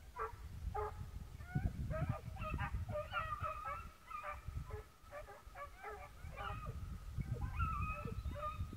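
A pack of Swiss hounds (Schweizer Laufhunde) baying: several voices overlapping in short, repeated cries.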